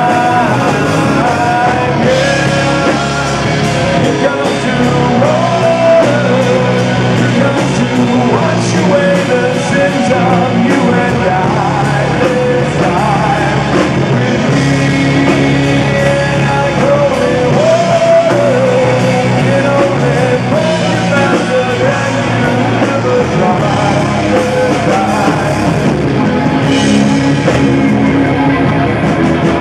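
A live rock band playing loudly: a man singing lead over electric guitar, bass guitar and drums.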